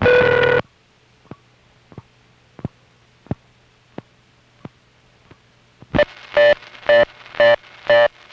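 A 1974 #5 Crossbar central office's number readback device heard over a telephone line: a brief loud tone, then a row of faint, evenly spaced clicks over a low line hum as the device plays the line's number as clicks instead of announcing it. From about six seconds a loud tone pulses on and off about twice a second.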